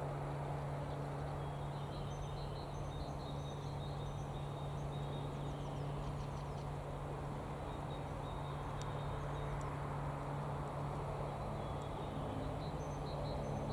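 Freight train of container wagons rolling slowly, a steady low hum and rumble, with small birds chirping over it.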